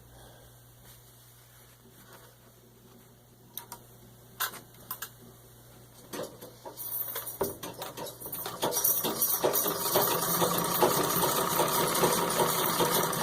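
Antique 1923 Singer 66 treadle sewing machine stitching through six layers of denim. After a few isolated clicks, the machine starts about six seconds in and picks up speed into a steady, rapid clatter of needle and mechanism.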